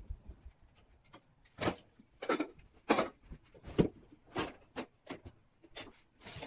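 A dishwasher being opened and its lower rack of dishes pulled out: a string of knocks and rattles, roughly one every half second, from the door and the rack.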